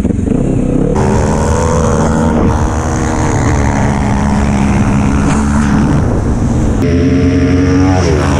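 Sport quad (ATV) engines running at full throttle in a drag-race run, the camera quad's own engine loudest and close to the microphone.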